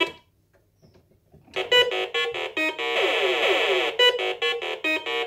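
1980 MB Bigtrak's electronic sound effects from its built-in speaker: a click at the start, then a run of short synthetic beeps from about a second and a half in, with a warbling, falling tone in the middle.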